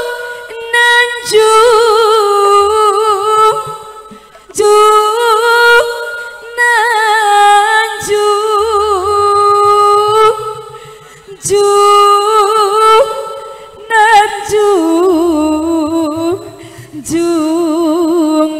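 A solo voice singing the slow opening verse of a Sundanese sawer song in phrases, holding long notes with wavering ornaments, with little or no accompaniment.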